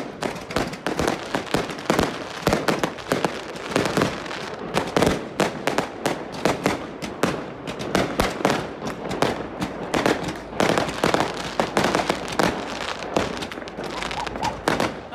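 Fireworks going off in a rapid, unbroken string of sharp bangs and crackles, several a second.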